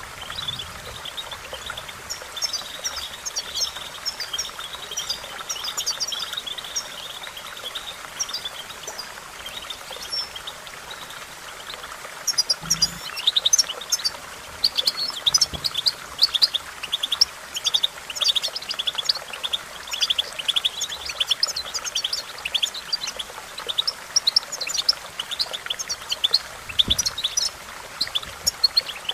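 European goldfinch singing: a fast, tinkling twitter of high chirps and trills, sparser at first, then denser and louder from about twelve seconds in.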